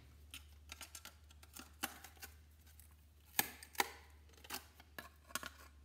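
Side-cutting pliers snipping through the edge of a computer circuit card to cut off its gold-plated strip: a series of sharp, irregular clicks and snaps.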